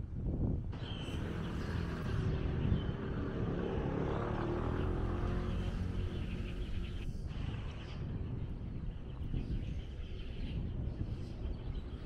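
Street traffic: a motor vehicle passing on the road alongside, swelling to its loudest about four seconds in and fading away by about eight seconds, over a steady low traffic rumble.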